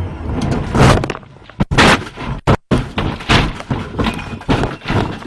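A Mitsubishi WRC rally car crashing off the stage, heard from inside the cabin. The engine note cuts out at once, then comes a string of heavy thumps and crunches as the body slams into the ground over and over, with the windscreen cracking.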